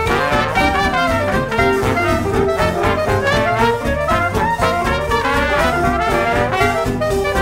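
Background jazz music, brass horns playing a melody over a steady beat.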